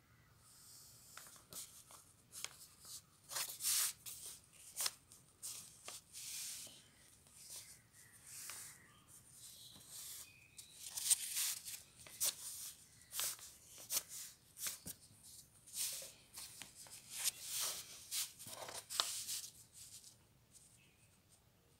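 Pencil scratching across paper in short, irregular strokes, coming in quick runs as a sketch is drawn and shaded.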